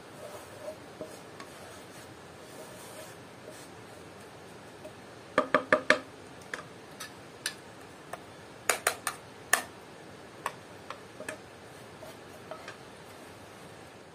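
Kitchen utensils and dishes clinking: a quick run of four ringing clinks about five seconds in, then scattered lighter clicks and taps.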